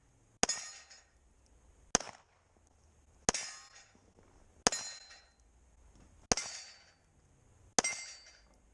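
Six pistol shots about a second and a half apart, each followed by the ring of a struck steel plate-rack target.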